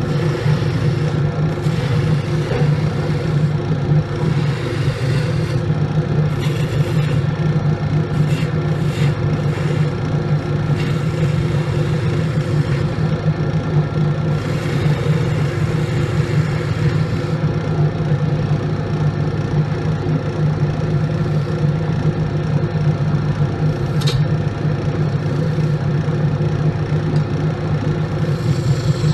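Wood lathe running with a steady hum while a hand-held turning tool cuts the spinning block, the cutting noise coming and going in rough, scraping stretches. One sharp click stands out late on.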